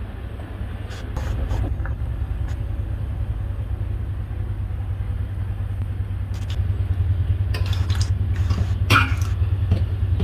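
A steady low rumble, a little louder after about six seconds, with a few light clinks and knocks of a metal spatula against a steel cooking pot.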